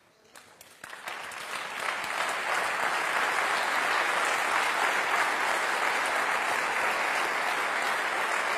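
Audience applauding: the clapping starts about a second in, builds quickly and then holds steady.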